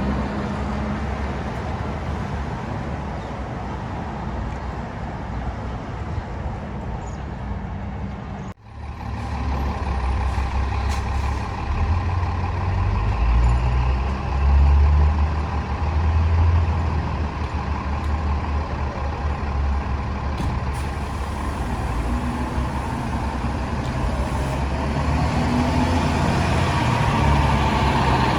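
Heavy fire truck engine running and moving off, a deep rumble that grows stronger after a brief cut-out about eight and a half seconds in.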